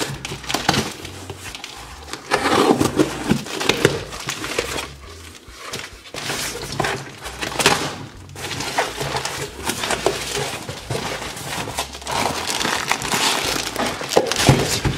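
Cardboard shipping box being opened by hand: packing tape cut and torn, flaps pulled open, and paper and plastic wrapping crinkling, in irregular tearing, scraping and rustling noises with a few sharp clicks.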